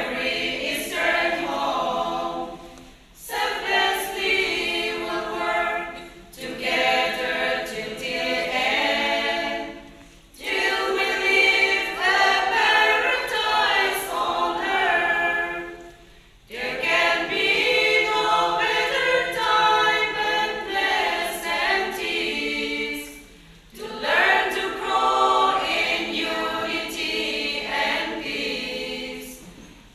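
Women's choir singing unaccompanied, in phrases with brief pauses for breath between them.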